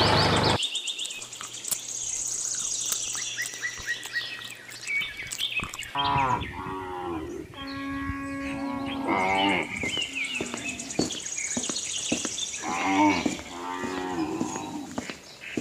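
Cows mooing, several long drawn-out calls from about six seconds in, over a background of birds chirping.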